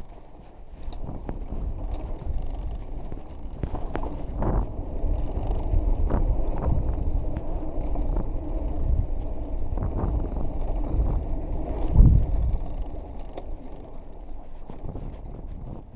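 Wind buffeting the microphone of a mountain bike's camera as it rolls fast over slickrock, with knocks and rattles of the bike over bumps in the rock and one hard jolt about twelve seconds in.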